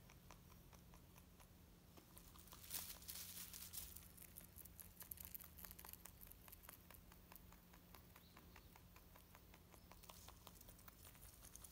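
A rabbit chewing oat hay: fast, faint crunching clicks, busiest and loudest a few seconds in, over a low steady hum.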